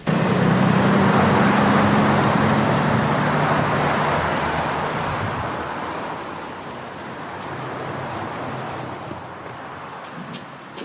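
City bus driving past close by, its engine hum and road noise loud at first and fading away over several seconds into a quieter, steady traffic noise.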